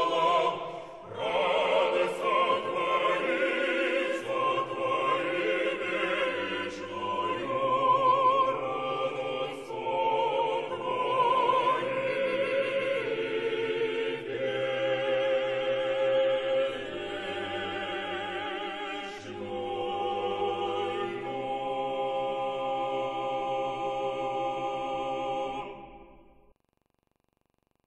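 Vocal ensemble singing in several parts, a high line with vibrato over low bass voices, settling into long held chords in the second half and fading out near the end.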